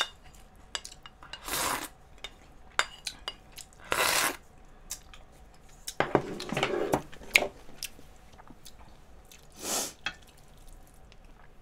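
A spoon and chopsticks click and scrape against bowls while someone eats, with some chewing. There are three short bursts of hiss: about two seconds in, four seconds in, and near the end.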